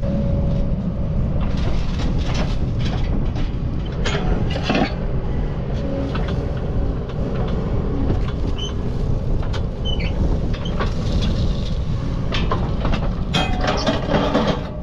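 Kubota skid steer's diesel engine running steadily, with scattered knocks and scrapes from the grapple bucket working a large rock out of the ground.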